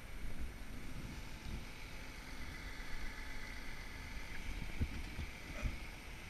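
Wind rumbling and buffeting on the microphone of a body-worn camera on a climber suspended high in the air, with a faint steady high whine strongest in the middle.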